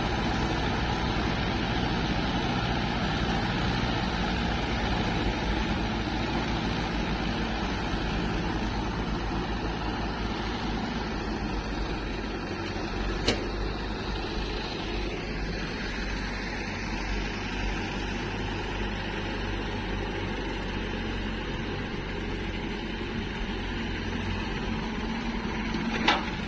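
Diesel tractor engine running steadily while it pulls a trolley loaded with earth, with one sharp click about halfway through.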